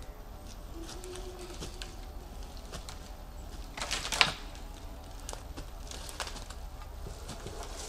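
Footsteps rustling in dry forest leaf litter and the knocks and scrapes of a long deadwood pole being lifted upright, with one short, louder crunch about four seconds in. A faint bird call sounds about a second in.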